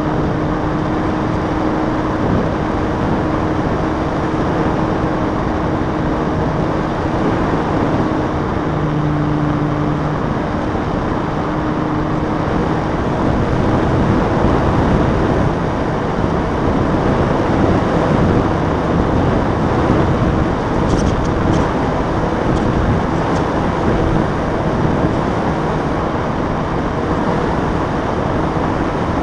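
Brushless electric motor and propeller of a foam RC Cessna 182 running in flight, heard from an onboard camera as a steady hum under a heavy rush of wind over the microphone. The hum shifts in pitch a little as the throttle changes.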